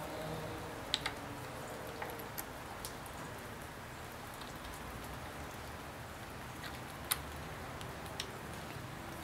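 Scattered light clicks and ticks of small screws and plastic parts being handled while a spinner knob is fitted to a garden tractor's steering wheel, over a steady hiss of rain.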